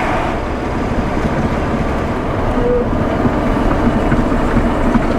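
Ready-mix concrete truck on the road, its engine and tyre noise a steady rumble heard from inside the cab.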